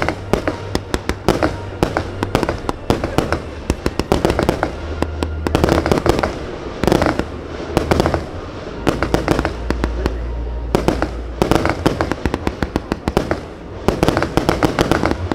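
Fireworks display: rapid crackling and repeated bangs of aerial shells going off in dense clusters.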